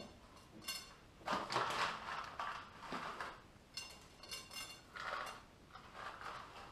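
Plastic pouch of dried goji berries crinkling and rustling in several short bursts as the berries are shaken out and picked from it by hand.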